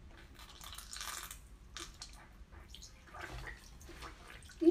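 Wet eating sounds from a raw geoduck siphon being bitten and sucked: scattered soft, squishy smacks and slurps. A brief vocal sound comes right at the end.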